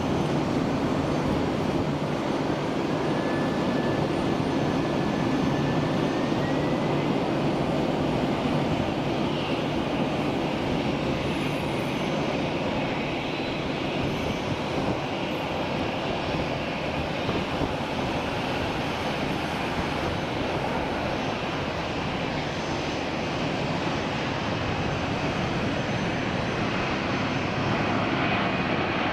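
Boeing 767-400ER's twin General Electric CF6-80C2 turbofan jet engines running at low taxi thrust as the airliner rolls along the runway, a steady loud rushing hum. A faint engine whine rises slightly in pitch a few seconds in.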